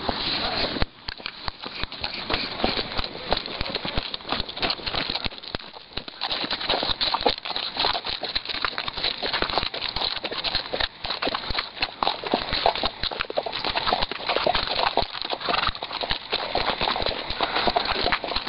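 Horse hooves clip-clopping on hard desert ground, a continuous uneven run of hoof strikes.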